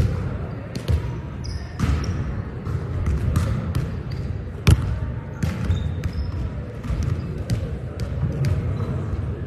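Volleyballs being hit and bouncing on a hardwood gym floor: a string of sharp slaps and thuds in a large echoing gym, the loudest just before halfway, with a few short high sneaker squeaks.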